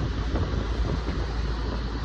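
Steady low rumble of a running vehicle, with no distinct events.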